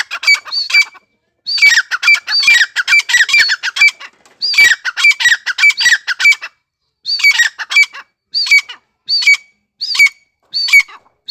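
Francolin (tetar) calling: dense runs of loud, sharp, repeated notes, then from about seven seconds in, separate calls repeated roughly every two-thirds of a second.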